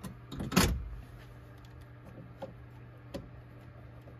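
Handling noise from hands working the wiring inside an open inverter cabinet: a loud knock or rustle about half a second in, then a few faint clicks, over a steady low hum.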